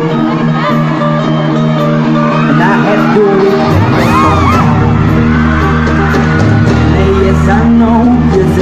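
Live band music with electric bass and sustained chords, a male singer at the microphone, and high-pitched yells and whoops from the crowd that are densest around the middle.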